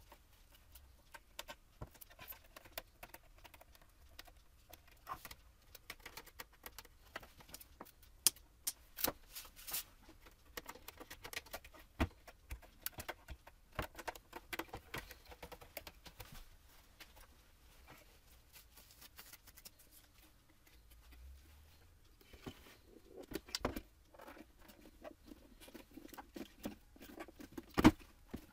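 Plastic headlight housing being handled: scattered small clicks, taps and rubbing as butyl sealant cord is pressed into the housing's channel and the lens is fitted, with one sharp plastic click near the end as the lens is pressed on.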